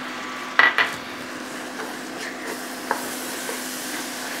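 Wooden spoon stirring a pan of ground beef and pork filling as water goes into the hot pan, which sizzles with a steady hiss. Two sharp knocks or splashes stand out about half a second in.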